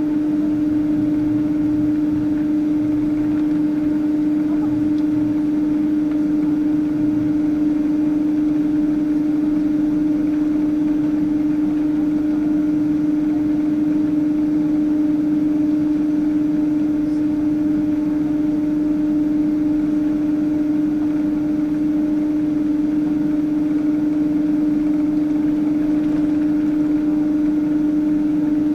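Steady cabin noise inside a Boeing 777-200 airliner on the ground before takeoff: an even rumble with one strong, constant low hum and a fainter tone above it, unchanging throughout.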